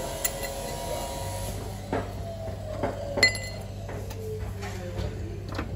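Scattered metallic clinks and knocks from tools and parts being handled, the clearest about three seconds in with a short ringing tone, over a steady low hum that starts about a second in.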